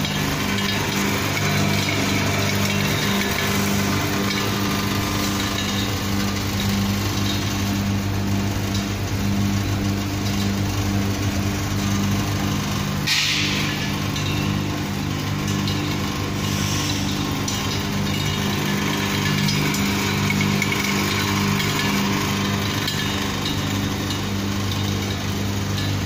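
Small electric screw oil press running with a steady, even motor-and-gear hum. About halfway through, a short rattling hiss as oil seeds are poured from a cup into its hopper.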